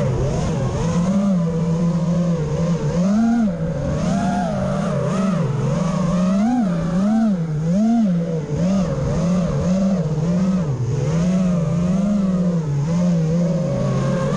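Small FPV quadcopter's electric motors and propellers whining, the pitch rising and falling quickly and repeatedly as the throttle is worked.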